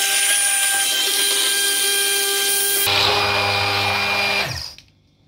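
Hand blender motor running in a steel pot, grinding soaked tamarind pulp into a purée: a steady whine whose tone shifts about three seconds in. It switches off and winds down shortly before the end.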